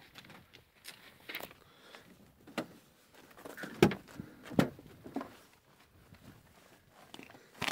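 Scattered knocks, clicks and rustles from handling around a parked car and its load of plastic bags and sacks of picked berries, with the two loudest knocks about four seconds in and half a second apart.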